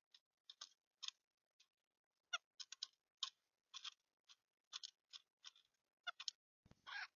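Small bird chirping in a nest box: short, high peeps a few times a second, some sliding down in pitch, with a scratchy rustle of the bird moving in the box near the end.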